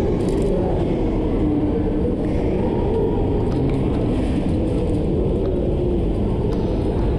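Steady low rumble echoing through an underground metro station passageway, with no clear events standing out.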